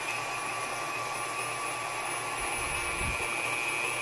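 KitchenAid Classic 250-watt stand mixer running steadily, its motor whining as the flat beater churns a bowl of liquid pumpkin pie filling.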